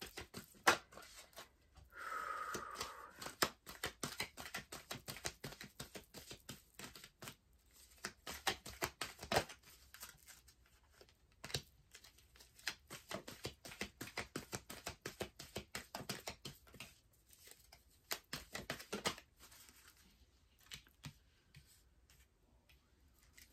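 A tarot deck shuffled by hand: a fast, irregular run of soft card clicks and slaps that thins out over the last few seconds.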